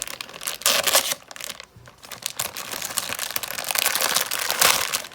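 Toy packaging being torn open and crinkled by hand: uneven crackling, rustling tears with a short pause about a second and a half in.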